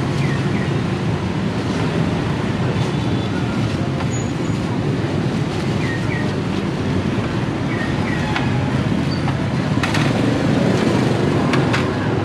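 Steady street traffic noise, with a few sharp knocks scattered through it, mostly in the second half.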